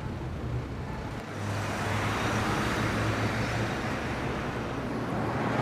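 Street traffic: a motor vehicle passing close, its engine hum and tyre noise swelling about a second and a half in and then holding steady.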